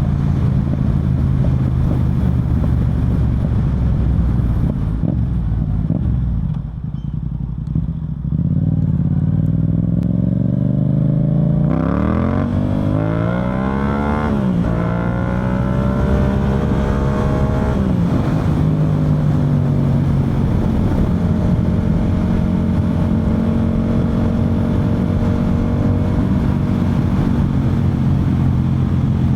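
Yamaha MT-07's parallel-twin engine through an Akrapovic full exhaust, heard from the moving bike. It eases off briefly, then revs up with rising pitch through two gear changes a few seconds apart, each a sudden drop in pitch, and settles into a steady cruise.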